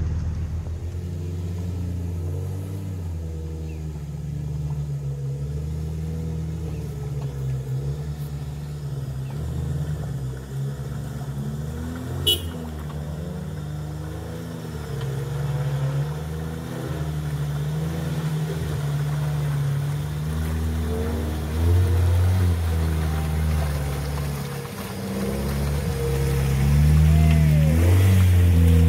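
Off-road 4x4 engines running and revving while pulling through deep mud, the revs rising and falling. A sharp knock comes about twelve seconds in. The engine is loudest near the end.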